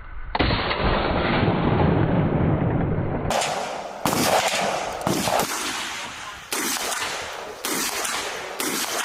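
Small-arms gunfire: a sudden long burst of sustained rapid fire for about three seconds, then single shots about once a second, each echoing as it dies away.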